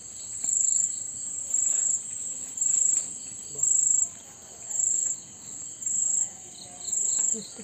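Insect chirping in a steady high-pitched rhythm, one pulse of about half a second roughly every second.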